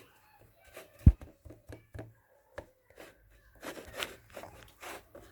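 Slime mixture being stirred in a bowl: irregular clicks and scrapes of the utensil against the bowl, with one sharp knock about a second in and a busier stretch of scraping near the end.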